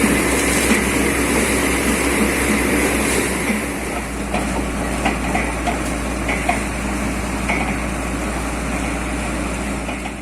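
Borewell drilling rig's engine and air compressor running steadily with a hiss over it. A low throb evens out about a third of the way in, and a few light knocks follow.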